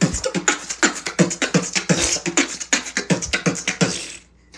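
Human beatboxing: a fast run of mouth-made drum sounds, kicks, snares and hi-hats, several a second, that cuts off suddenly near the end.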